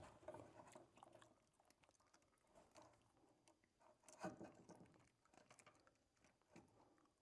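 Near silence with a few faint crunches and clicks, the clearest about four seconds in: small hand work on electrical wire.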